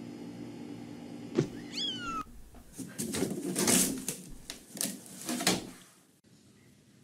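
A cat's meow, one falling call about two seconds in, just after a sharp click, over a steady hum. Then a run of loud noisy bursts, the loudest near four seconds in, dying away near the end.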